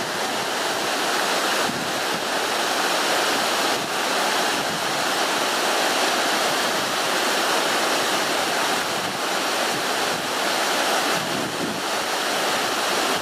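Mountain waterfall and the rocky torrent below it, water rushing and splashing over boulders in a steady roar.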